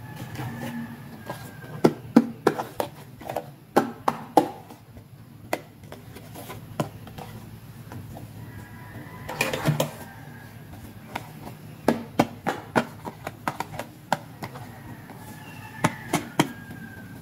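Hard plastic toy handbags being handled and set down on a tabletop: clusters of sharp clicks and clacks of plastic, several quick taps at a time.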